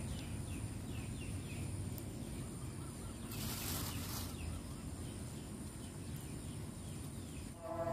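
Streamside outdoor ambience: a small bird gives a quick run of short, falling chirps in the first two seconds over a steady low background rumble. A brief rush of hiss comes a little past three seconds in, and a sustained pitched sound begins right at the end.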